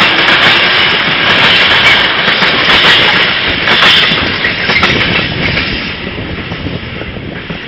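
Empty container flat wagons of a freight train rolling past, with repeated wheel knocks; the noise fades away over the last couple of seconds as the end of the train goes by.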